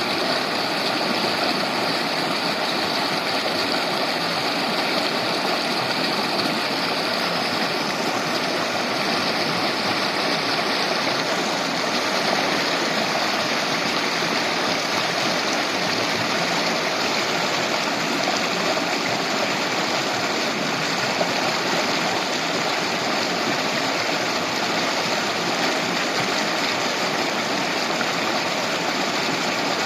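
Shallow river flowing over stones, a steady babbling rush.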